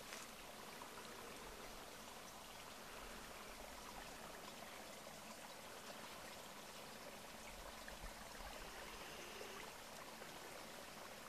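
Near silence: a faint, steady hiss of outdoor background sound.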